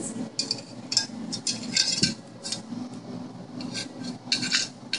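Upturned terracotta flower pot clinking and knocking as a Siberian husky puppy mouths and paws at it: irregular clusters of short, hard clicks.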